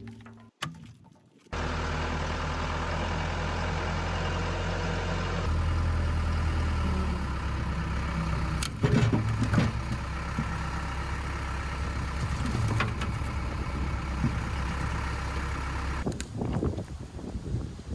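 Heavy-equipment diesel engine running steadily, starting abruptly about a second and a half in, with a few sharp metal knocks about halfway through. The engine sound gives way near the end.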